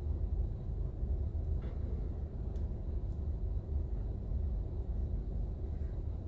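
Steady low rumble inside a stationary car's cabin, with a few faint ticks.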